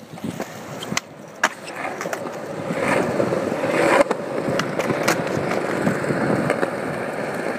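Skateboard wheels rolling on concrete, with a few sharp clacks of the board, the loudest about four seconds in.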